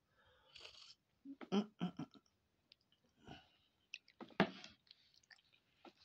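A person drinking sosoma porridge from a plastic cup: a slurp about half a second in, then a run of gulps and wet mouth clicks, another slurp, and a sharper swallow a little past four seconds.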